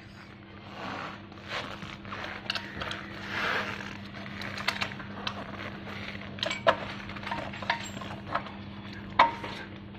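Hex key clicking and clinking against a screw and the metal folding clamp of an electric scooter's stem while the screw is turned to tighten the loose stem. Irregular sharp ticks, a few louder ones in the second half, over a steady low hum.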